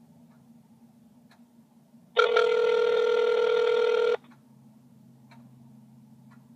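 Telephone ringback tone heard through a phone's speaker: a single steady ring lasting about two seconds, starting about two seconds in, as the call is put through to an extension after the automated menu.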